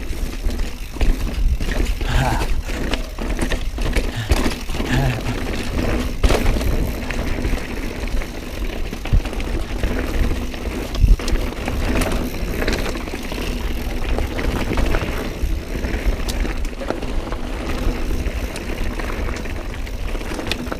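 Mountain bike ridden over a rocky trail: tyres rolling and knocking over rocks and the bike rattling, with many sharp knocks, the loudest about eleven seconds in. Wind rumbles on the microphone throughout.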